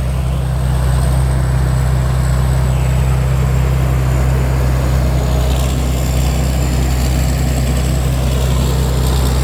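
Combine harvester's engine running steadily, a constant low drone with a thin, high whine above it.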